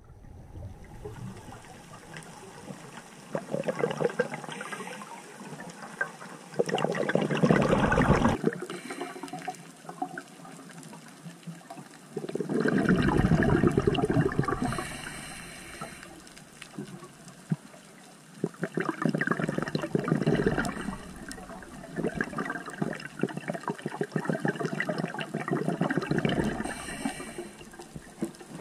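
Scuba regulator exhaust bubbles heard underwater: a diver's exhaled breath gushing out in about five bursts a few seconds apart, with a quieter hiss between them.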